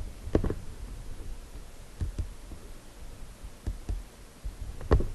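Computer mouse clicking: about six short clicks, some in quick pairs about a fifth of a second apart, the loudest near the start and near the end.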